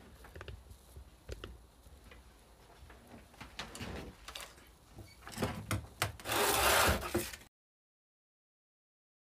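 Hands handling wiring and small parts: scattered clicks and light rubbing, then a louder rustling scrape about six seconds in that lasts about a second. The sound then cuts off abruptly to dead silence.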